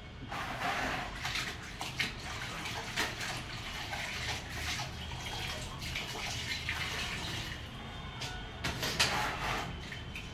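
Water splashing and dripping into a plastic bucket as a wet cleaning cloth is dipped and wrung out, in uneven bursts, the loudest near the end.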